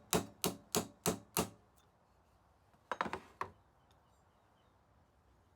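Hammer striking a flaring tool set in a .357 brass shell casing, about three even blows a second, five blows before it stops; the blows peen a flange on the back of the casing to lock it in place. About three seconds in comes a short quick run of lighter taps.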